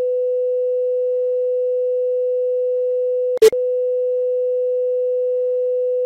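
A steady 500 Hz sine test tone for a left/right speaker check, played in the left channel and then switched to the right. A short loud click and a brief break in the tone mark the switch about three and a half seconds in.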